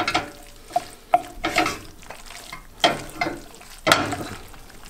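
Wooden spoon stirring and tossing spaghetti with raw egg and pecorino in an enamelled pan off the heat, mixing the carbonara sauce. Irregular knocks and scrapes of the spoon against the pan.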